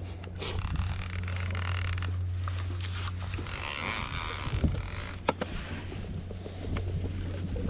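Boat motor running with a steady low hum under spells of a large conventional fishing reel being cranked, its gears whirring, with a few sharp clicks from the reel.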